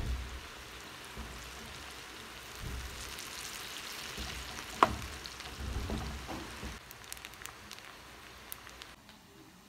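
Boiled fusilli pasta frying in hot oil in a pan, a steady sizzle, stirred with a metal spoon that knocks the pan, sharply once about five seconds in. The sizzle drops away near the end.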